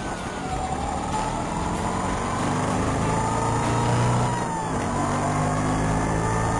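Vespa scooter engine running with a siwingan whistle fitted, giving a siren-like wail over the engine note. The wail rises slowly, drops briefly about four and a half seconds in, then rises again.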